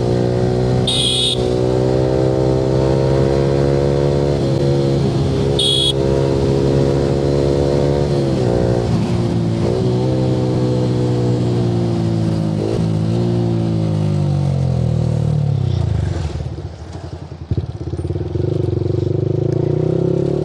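Yamaha R15 V3's single-cylinder engine through an Akrapovic exhaust under way at steady speed, with brief dips in pitch as it shifts. About fourteen seconds in the pitch falls and the engine eases off toward idle, then it picks up again near the end. Two short high-pitched beeps sound near the start, about five seconds apart.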